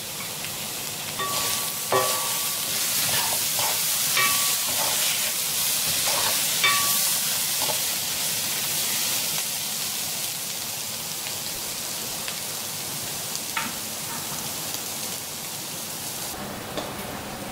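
Potatoes, mushrooms and spice masala sizzling in oil in a metal wok while a spatula stirs them. The spatula knocks and scrapes against the pan several times in the first seven seconds or so, and then the steady sizzle goes on alone.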